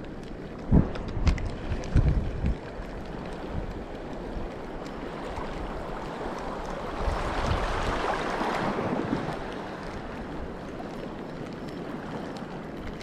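Wind buffeting the microphone, with a few low thumps in the first couple of seconds, over the wash of sea water. About seven seconds in, a louder rush of water swells and fades over roughly two seconds.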